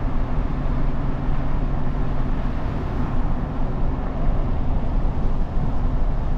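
Steady engine hum and tyre noise inside the cab of a truck driving on a snowy road.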